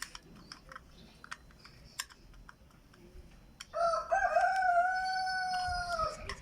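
Light plastic clicks from handling the chime's remote, then, about four seconds in, the wireless bird door chime sounds from its small speaker: one long electronic bird call, wavering at first, then held, falling off after about two and a half seconds.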